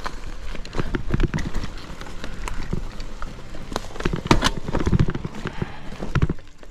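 Mountain bike clattering over a rough, stony trail: a run of irregular knocks and rattles from the wheels and frame, easing off near the end.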